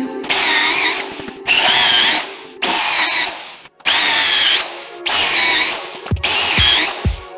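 Power drill boring into a wooden log in six short bursts of about a second each, its whine wavering as the bit bites into the wood.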